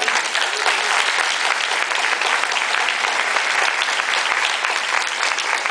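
Audience applauding, a dense, steady clapping from many hands.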